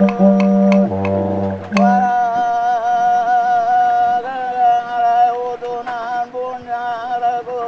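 Music: a didgeridoo drone with sharp taps, which stops about two seconds in, followed by a voice singing long held notes.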